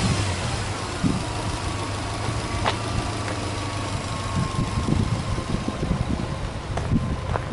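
Subaru Legacy B4 2.0GT spec B's turbocharged flat-four boxer engine idling, the revs settling back down in the first second after a blip of the throttle. A faint whine slowly falls in pitch over the first few seconds, and a few light clicks sound over the idle.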